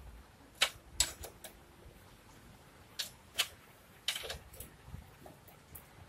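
A dozen or so sharp metallic clicks and clinks, irregularly spaced, from a spanner working the rear axle nut of a Honda C70 as it is tightened.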